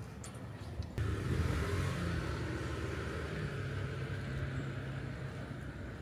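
A motor vehicle passing on a road, its engine and tyre noise rising suddenly about a second in and slowly fading.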